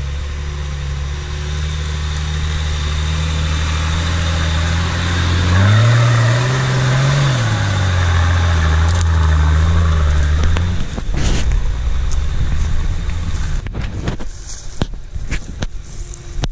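Off-road vehicle's engine running under load as it climbs the slope close by. It revs up about five and a half seconds in, settles back, and dies away after about eleven seconds. Short crackling clicks follow near the end.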